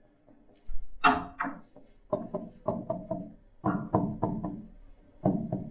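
Stylus knocking and tapping on an interactive whiteboard's surface while writing: an irregular run of short, sharp knocks, several a second, starting under a second in.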